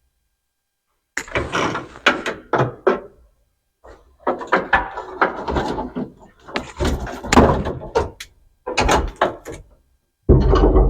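Knocks, thunks and rattles of hands and tools pulling old parts and wiring out of a classic pickup's cab, in four irregular bursts with short silent gaps between them.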